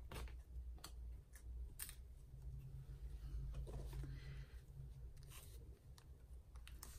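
Quiet paper-crafting sounds: a few sharp, separate clicks and soft paper rustling as a small paper cut-out is handled and pressed onto a journal page with a glue stick. A faint low hum runs for a couple of seconds in the middle.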